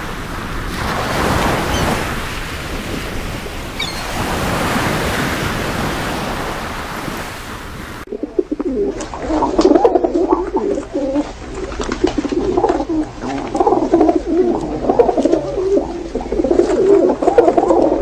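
A steady rush of wind and sea with a few faint high calls, then, from about eight seconds in, a flock of feral pigeons cooing over one another in a dense, pulsing chorus.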